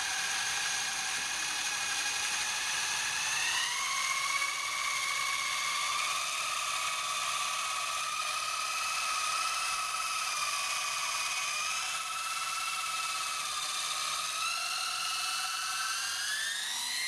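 Electric motors and gear drive of an E-flite Blade CX2 coaxial R/C helicopter whining steadily as it runs, the pitch stepping up about three and a half seconds in and rising again near the end.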